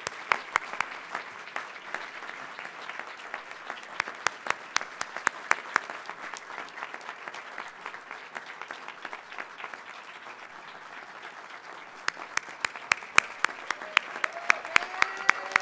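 Audience applauding: dense clapping that eases slightly midway, then picks up with louder, sharper claps from about twelve seconds in.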